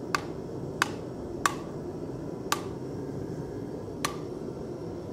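Rawhide mallet striking the rim of a red-hot carbon steel skillet blank on an anvil: five sharp blows at uneven spacing, each with a short ring. The blows are straightening out a bump in the edge so the rim stands up evenly.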